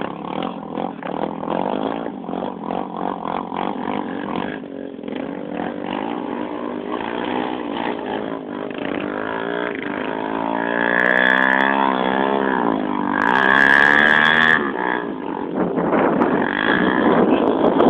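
Trail motorcycle engine revving under load, its pitch climbing and dropping repeatedly in the second half, loudest about three-quarters of the way through.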